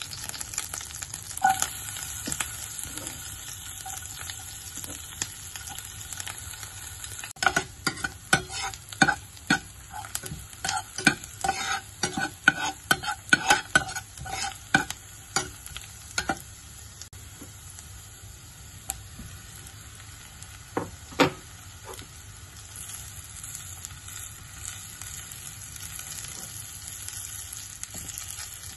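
Butter sizzling in a frying pan with a steady hiss. A metal spatula clinks and scrapes rapidly against the pan for about nine seconds in the middle as sliced seasonings are stirred, with a couple of single knocks later.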